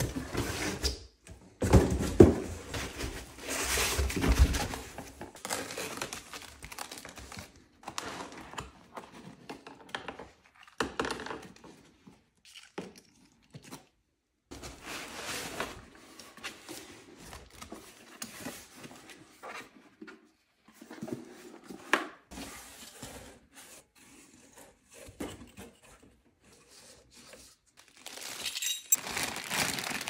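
Unboxing noises: cardboard box flaps and foam packing being handled, plastic bags crinkling, and thunks as parts are lifted out and set down. The noises come in irregular bursts with pauses between them, busiest in the first few seconds.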